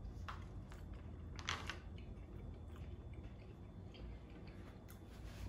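A person chewing a mouthful of soft rehydrated freeze-dried noodles and meat, with a few faint short mouth sounds, the clearest about one and a half seconds in.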